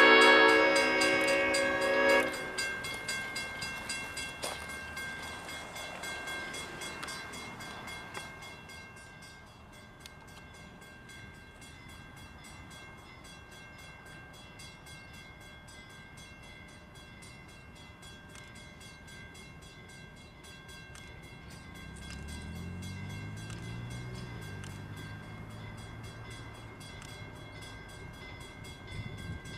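Maryland and Delaware CF7 #2628's multi-chime horn blowing loudly and cutting off about two seconds in, followed by a quieter stretch with faint steady ringing from the grade crossing. About 22 seconds in, the CF7's EMD 567 V16 diesel engine is heard throttling up, its pitch rising and then holding as the locomotive comes closer.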